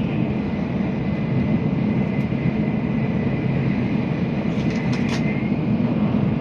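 Cabin running noise of a Tokaido Shinkansen Nozomi train at speed: a steady low rumble with hiss above it, and a couple of faint clicks.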